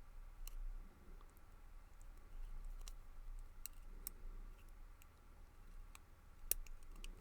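Faint, scattered clicks of small metal parts as pin tumblers and springs are loaded into the chambers of a brass pin-tumbler padlock during reassembly, with one sharper click about six and a half seconds in.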